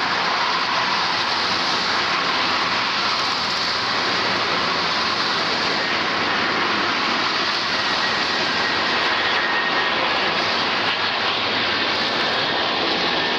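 Boeing 747's four jet engines on landing approach with the gear down: a steady, even jet noise, with a faint high whine coming in during the second half.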